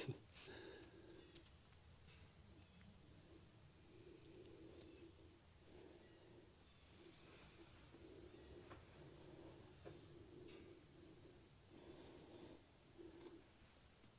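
Near silence outdoors, with a faint, steady chorus of insects trilling high and continuous. A faint low hum comes and goes under it.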